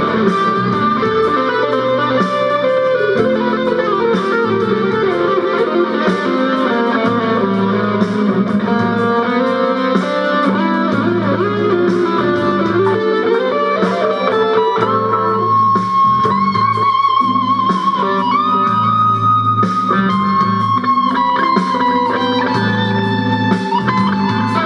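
Electric guitar played solo: a busy run of melodic notes, then held lead notes with vibrato in the second half.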